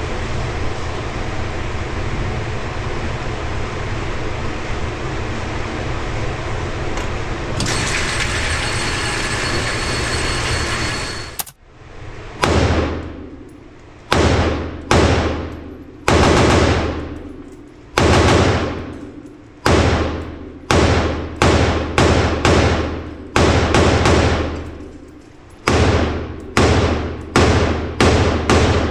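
Steady rushing noise for about the first eleven seconds, then it cuts off. Gunshots follow, roughly seventeen of them at irregular intervals, each a sharp crack trailing off in a long echo.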